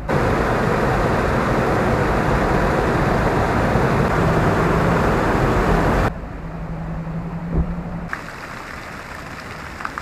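Waterfalls and water gushing from a hose pipe, a loud steady rush. About six seconds in it cuts sharply to a quieter, fainter rush of water, with a faint low hum and a single knock.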